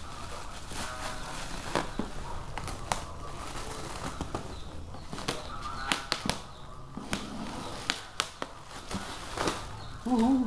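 Scissors snipping through black plastic parcel wrapping, with the plastic crinkling and rustling as it is cut and pulled off a cardboard box, marked by many sharp clicks. Near the end comes a short wavering vocal sound, the loudest moment.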